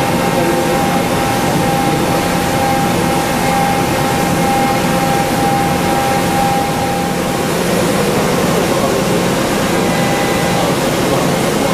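CNC milling under flood coolant in a Matsuura CUBLEX-42 five-axis machine, an end mill cutting a motorcycle part from solid: a steady hiss of coolant spray and cutting with a steady high tone from the cut. The tone drops out about seven and a half seconds in and comes back briefly near the end.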